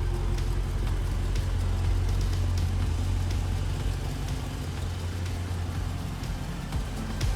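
V8 engine of a Dodge Challenger Scat Pack running steadily at idle: a deep, even low rumble that eases slightly about halfway through.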